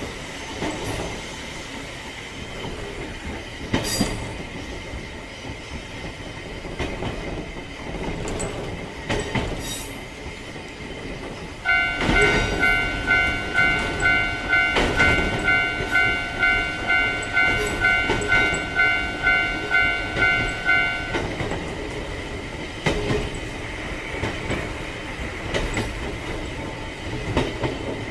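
Railcar running over rail joints, with a few sharp knocks. About twelve seconds in, a Japanese level-crossing warning bell starts ringing about twice a second for roughly nine seconds, then stops.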